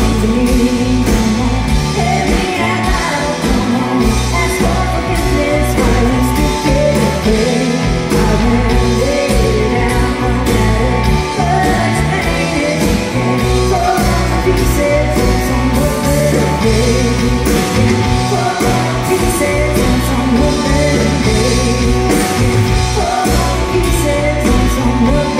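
Live rock band playing a song: a woman sings over electric guitars, bass and drums, heard through the PA from the audience.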